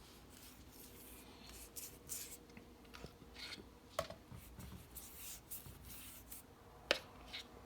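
Faint rubbing and handling sounds of wire-pulling lubricant being spread by hand over a cast-aluminum closing-wheel half, with two sharp clicks, about four seconds in and just before seven seconds.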